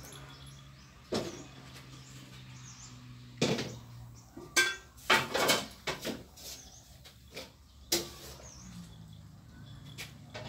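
Several cats eating rice from a plastic tray, making irregular clicks and knocks of jaws, paws and the tray, busiest around the middle. A faint steady low hum runs underneath.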